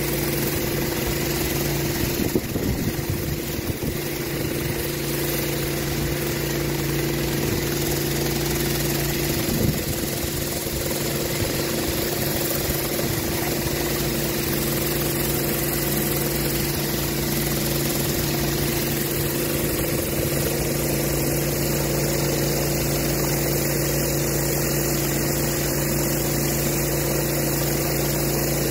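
Pressure washer engine running steadily under load, with the hiss of high-pressure water from a rotary surface cleaner being worked over a rubber wet pour surface.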